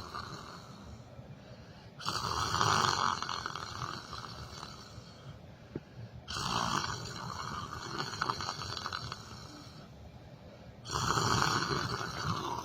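A person snoring while asleep: three long, noisy snoring breaths about four to five seconds apart, with quieter breathing between them.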